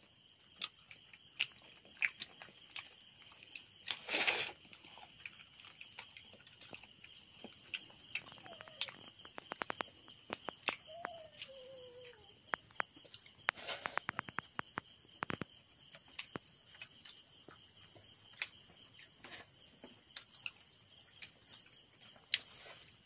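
A steady, high-pitched chorus of night insects, with scattered faint clicks and knocks. A short, loud noise comes about four seconds in and another near fourteen seconds.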